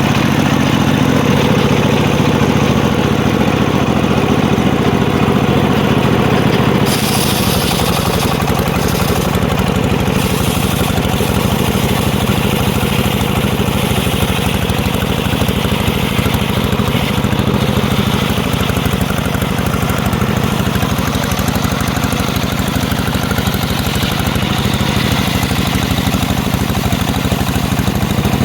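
Engine of a homemade circular sawmill running steadily under power. About seven seconds in, the engine note drops slightly and a harsher hissing noise joins it.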